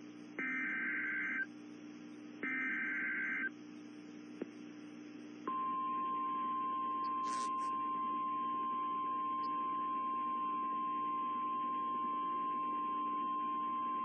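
NOAA Weather Radio Emergency Alert System tones. First come two one-second bursts of SAME digital header data, a harsh two-tone warble, about a second apart. About five seconds in, the steady 1050 Hz warning alarm tone starts and holds for about nine seconds, announcing the tornado warning that follows.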